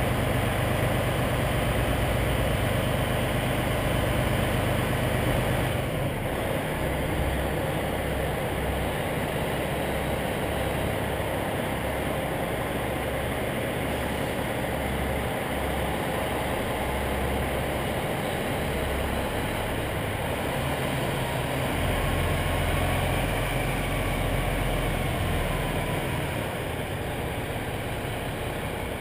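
Semi-truck diesel engine running at low revs, a steady low rumble that shifts a little in pitch and level a couple of times.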